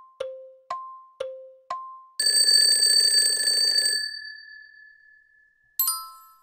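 Quiz countdown sound effects: a clock ticking about two times a second, then a bell ringing for about two seconds as time runs out, and a short chime near the end as the answer is shown.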